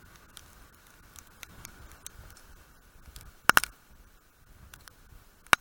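A few sharp clicks and knocks over faint steady background noise: a loud double click about three and a half seconds in and a single sharp click near the end.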